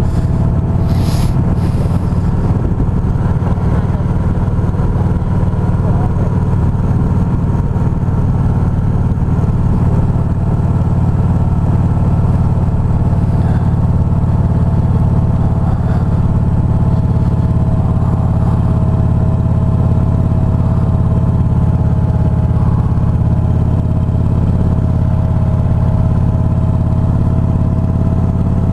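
Motorcycle engine running steadily at a slow, even cruise, with a constant low hum and road and wind noise.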